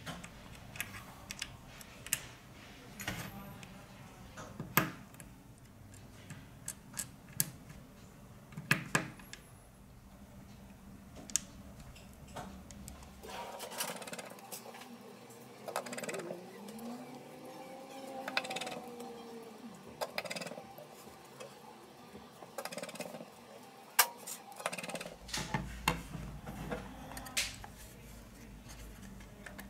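Scattered light clicks and taps of small smartphone parts being handled and pressed into place, with a precision screwdriver working on the LG G5's internal frame, over soft handling noise.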